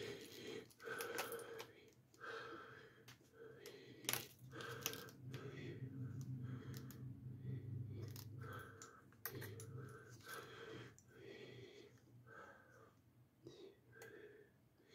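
Light clicks and clatter of a carbon-fibre cinewhoop frame with plastic ducts being handled and turned over in the hands, the sharpest click about four seconds in. A low hum runs for a few seconds in the middle.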